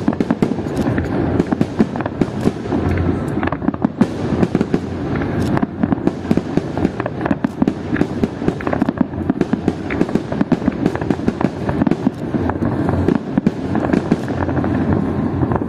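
Fireworks display: a dense, unbroken barrage of crackling bangs from many shells bursting at once, several per second.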